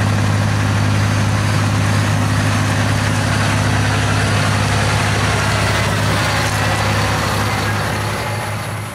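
Massey Ferguson tractor's diesel engine running steadily with a deep, even hum as it pulls a trailer past. The sound fades out near the end.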